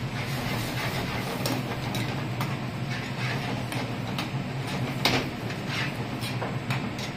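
Metal spoon scraping and knocking against a frying pan as a thick curry is stirred, in irregular clicks with the loudest about five seconds in, over a steady hiss and hum.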